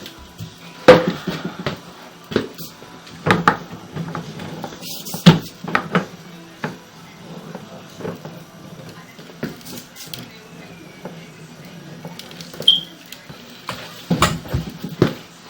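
Irregular sharp knocks and clanks, the loudest about one, three and five seconds in and a cluster near the end, over a steady low hum.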